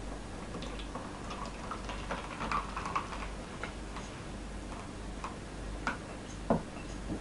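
Light, scattered ticks and taps of a silicone spatula scraping thick batter out of a bowl into a plastic cake mould, with one louder knock near the end.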